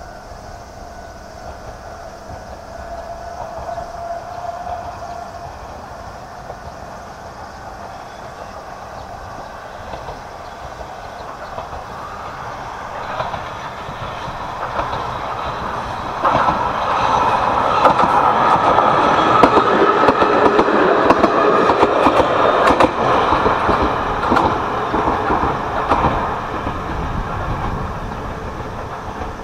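Ichibata Electric Railway DeHaNi 50-type electric railcar approaching, passing close by and running away. Its sound builds gradually, turns suddenly loud about halfway through with a rapid clatter of wheels over the rail joints, then fades toward the end.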